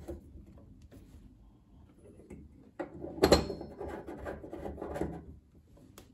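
Small metal clicks and scraping as a 7 mm nut driver fits and threads a gas jet into a hob burner, with one louder clatter about three seconds in.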